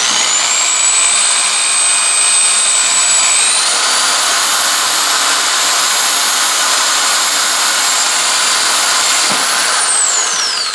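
Cordless drill spinning a 3/4-inch paddle bit through the wall of a plastic storage tote, cutting an air hole. The motor whine climbs as it starts, steps higher about three and a half seconds in, holds steady over the hiss of the bit cutting plastic, then winds down near the end as the trigger is released.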